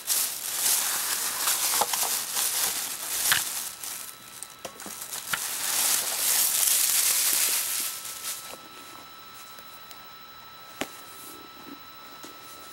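Thin plastic shopping bag rustling and crinkling as it is handled and items are pulled out of it, for about eight seconds; then it goes quieter, with one sharp click near the end.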